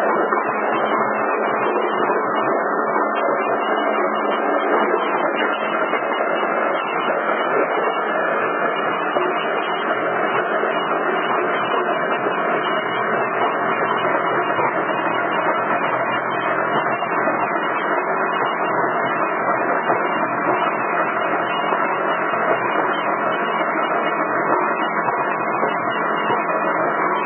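Power crushing machine running with a steady, unbroken mechanical noise.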